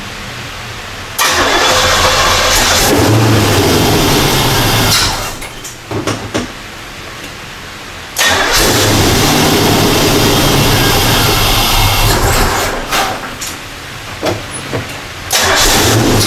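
Supercharged C4 Corvette 5.7-litre V8 on its first start attempts: three tries, each starting suddenly and running loud for a few seconds before stumbling and dropping away, with a sputter between tries. It will not keep running, which the owner puts down to a fuel issue and what sounded like a vacuum leak.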